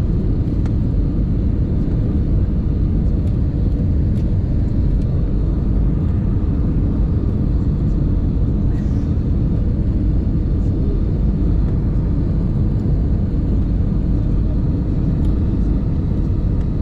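Airliner cabin noise during the descent to land: a steady, loud low rumble of the turbofan engines and the airflow over the fuselage, heard from inside the cabin.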